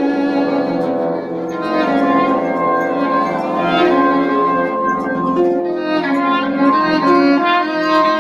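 Small chamber ensemble improvising, bowed strings with violin to the fore playing several long overlapping held notes that change pitch every second or two.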